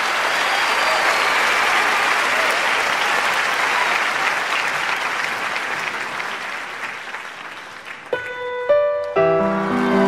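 Audience applauding, the clapping dying away over about eight seconds. Then the first notes of the song come in: a few single sustained tones, followed by layered chords.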